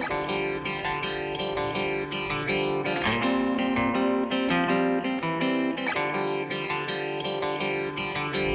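Background music led by a plucked guitar, playing a steady run of notes.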